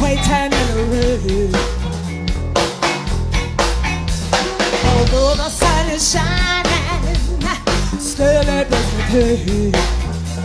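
A live R&B band playing, with a woman singing lead over drum kit and electric bass.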